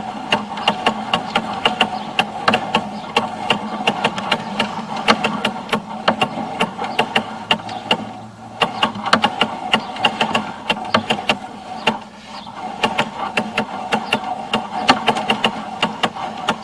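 Sewer inspection camera's push-cable reel being wound back slowly: a run of rapid, uneven clicks and rattles over a steady hum, easing off briefly twice.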